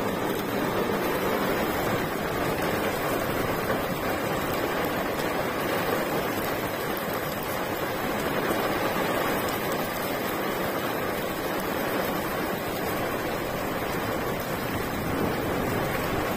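Heavy thunderstorm rain pouring down, a steady even rush with no breaks.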